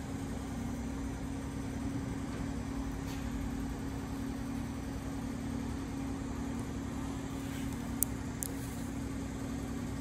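Steady mechanical hum with one held tone underneath. About eight seconds in come two small sharp clicks, close together, as a thin wedge-tipped de-pinning tool pries at the plastic locking door of a Harley CAN bus wiring connector.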